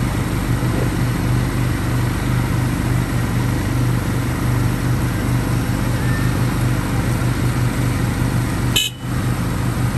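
ATV engine running steadily while riding, with a short break about nine seconds in.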